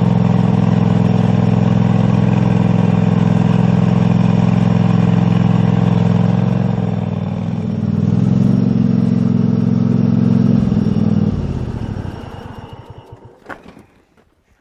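Four-wheeler (ATV) engine running steadily, heard close up from the front bumper. It eases off about seven seconds in, picks up again, then winds down and dies away as the machine stops, with a sharp click near the end.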